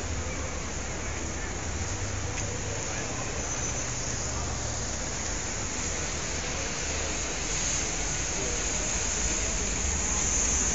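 Steady street traffic noise: a low engine rumble under a hiss that grows louder near the end.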